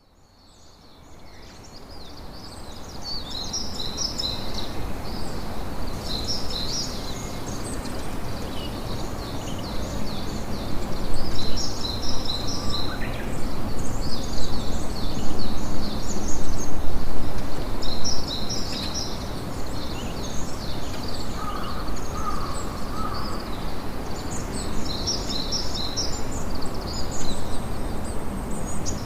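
Sea surf and wind, a steady wash that fades in over the first few seconds and swells louder for several seconds mid-way, with many small birds chirping high above it throughout.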